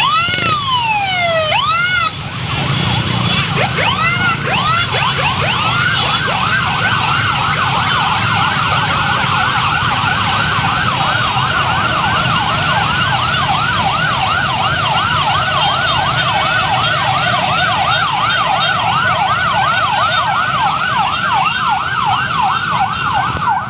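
Electronic emergency sirens: slow rising and falling wails for the first couple of seconds, then, from about six seconds in, a fast yelp sweeping up and down about three times a second, with several sirens overlapping. Underneath is the steady rumble of many motorcycle engines running.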